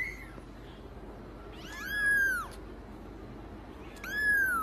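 Young kitten mewing: high mews that rise and fall in pitch, a short one at the start, a longer one about two seconds in, and another near the end.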